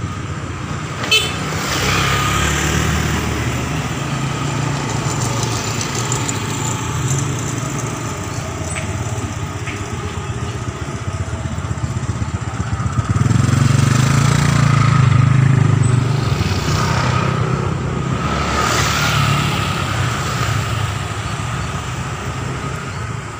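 Motorcycle engine running steadily, getting louder for a few seconds about halfway through. A single short click comes about a second in.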